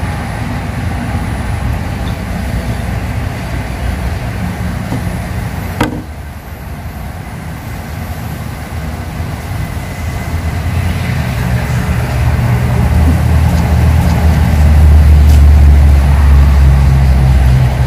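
Low engine rumble of a motor vehicle, growing louder over the second half as it comes closer. There is a single sharp click about six seconds in.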